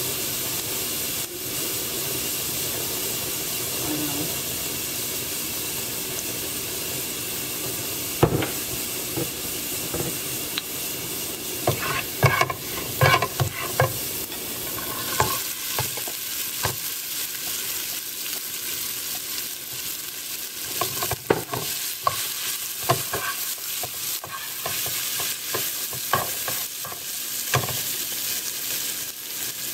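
Chopped green onion sizzling in hot oil in a frying pan, a steady hiss. From about twelve seconds in, a plastic spatula clatters and scrapes in the pan as a crumbly filling is stir-fried.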